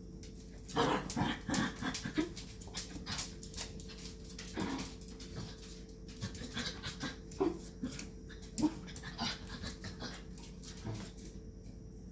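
Puppy panting and huffing in irregular short bursts as it play-fights with a cat, with scuffling on a blanket over a tile floor.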